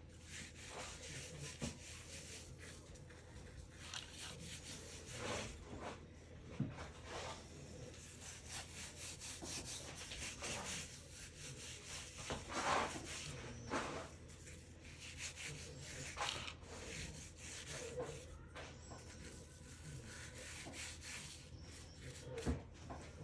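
Hands rubbing and patting dry seasoning rub onto a meatloaf: soft, irregular brushing strokes with a few louder ones.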